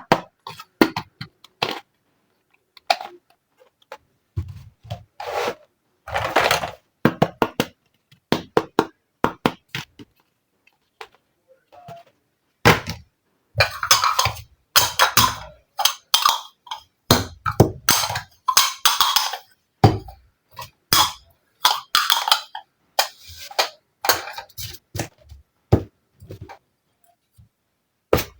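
Miniature plastic toy kitchen and tea set pieces being handled: an irregular run of small taps, clicks and clinks, with short scrapes in between.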